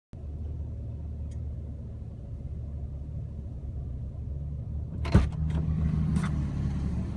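Jeep Wrangler TJ engine idling steadily, with a sharp thump about five seconds in followed by a few lighter knocks and rustling.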